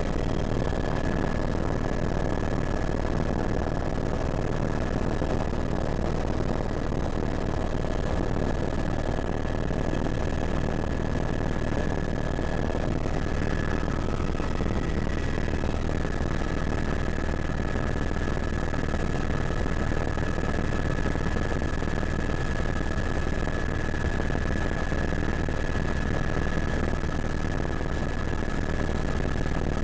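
Helicopter in flight heard from inside the cabin: a steady rumble of engine and rotor with a constant high whine. About halfway through, a second, slightly lower whine joins in.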